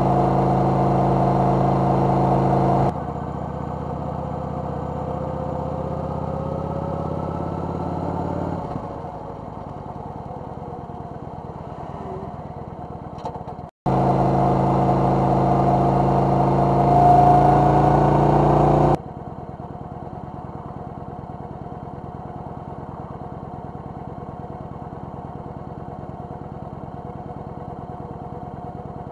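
Motorcycle engine running steadily while riding, with a drop in level about three seconds in and a brief dropout in the middle. Afterwards it runs louder for about five seconds, then settles to a lower, steady sound.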